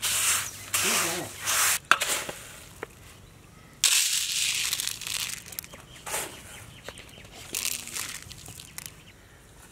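Dry fried winged termites and puffed rice rustling and rattling as a hand stirs them in a steel bowl, then several pours of the mix from a coconut-shell scoop onto paper plates, the loudest about four seconds in.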